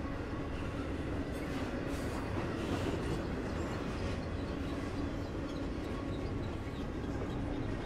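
CSX intermodal freight train's double-stack container well cars rolling past, a steady rumble of steel wheels on the rails.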